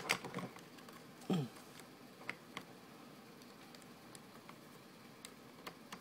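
Faint scattered clicks and ticks of a Mini DisplayPort-to-HDMI adapter being handled and plugged into a laptop's port, with a sharper click at the very start.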